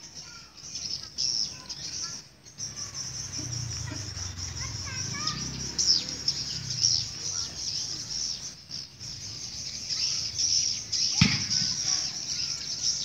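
Swiftlet calls: a dense, continuous high twittering chatter with scattered chirps. A sharp knock comes about eleven seconds in.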